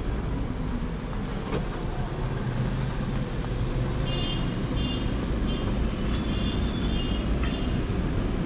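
Car driving through town heard from inside the cabin: a steady low rumble of engine and road noise. Partway through, a high chirping beep repeats rapidly in two short runs.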